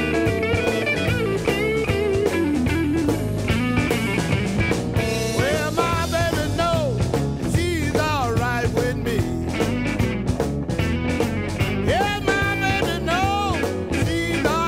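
Rock music with electric guitar over a steady drum beat, the guitar lines bending in pitch.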